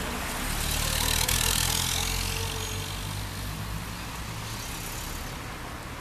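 A car driving past close by: engine rumble and tyre noise swell to a peak about a second in, then fade away over the next few seconds.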